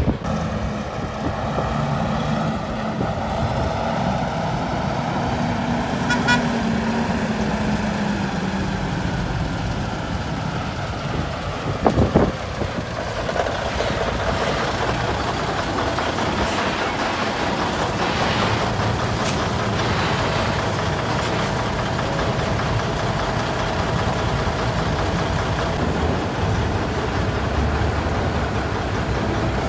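Diesel engines of heavily loaded semi trucks running on the road, the engine note falling slowly over the first ten seconds or so. A single sharp clunk comes about twelve seconds in.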